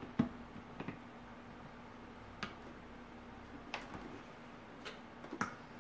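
Light plastic clicks and knocks, about half a dozen spread across a few seconds, as a Vitamix blender's lid is pressed onto its container and the container is handled on its base, over a faint steady hum. The blender motor is not running.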